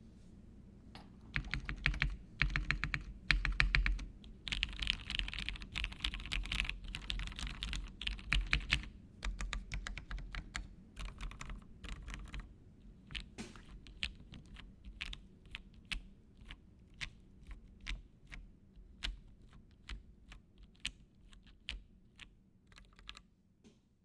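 Typing on a custom mechanical keyboard with a polycarbonate case, carbon fiber half plate, Gateron Ink switches and ePBT keycaps. A fast run of rapid keystrokes gives way about halfway through to slower, separate key presses that thin out and stop near the end.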